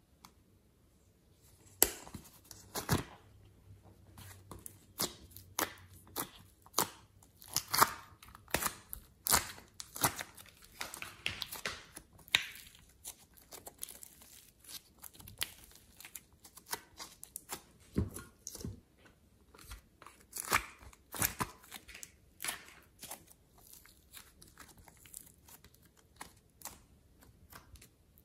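Soft clay and slime being stretched, pulled apart and folded by hand, with irregular sticky clicks and pops.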